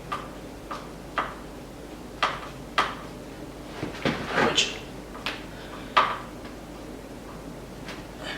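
Light clicks and knocks of a Phillips screwdriver and small screws being worked out of the plastic side panel of an electric unicycle, about a dozen separate taps spread over several seconds, the loudest about six seconds in.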